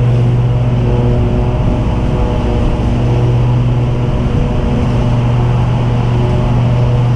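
Commercial lawn mower engines running steadily while mowing, a low engine drone whose main note wavers and fades briefly a couple of times.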